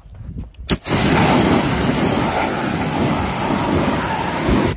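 Pressure washer jet spraying onto an alloy wheel, rinsing off acid wheel cleaner: a steady, loud hiss that starts suddenly about a second in and cuts off abruptly near the end.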